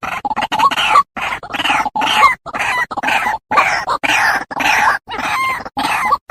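White-breasted waterhen (ruak-ruak) calling loudly: a fast run of short, rough, hooked notes, about two a second, separated by brief gaps.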